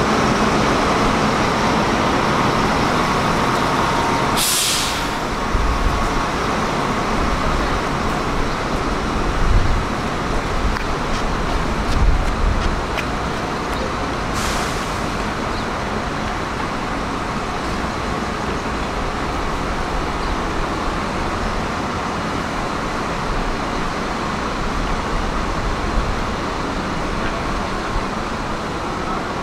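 Bus station traffic: a steady low rumble of idling and passing buses and cars, with two short hisses of bus air brakes releasing, about five seconds in and again about fifteen seconds in.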